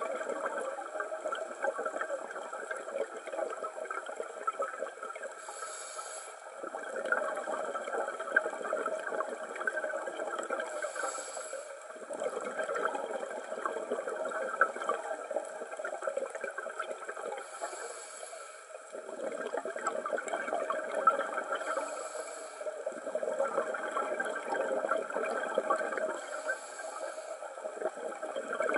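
Scuba diver breathing through a regulator, recorded underwater: a short hiss on each inhale, then a longer stretch of crackling exhaled bubbles. There are five breaths, one about every five to six seconds.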